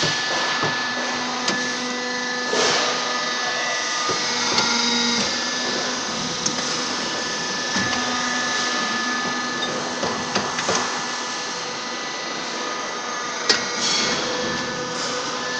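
Compressed sawdust pallet block machinery running with a steady motor hum and hiss, with a few sharp metallic knocks now and then.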